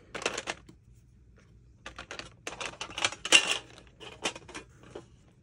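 Pens, pencils and a glue stick clicking and rattling against a metal pencil tin as they are packed back into it: irregular light taps, a short lull about a second in, and the loudest clatter around three seconds in.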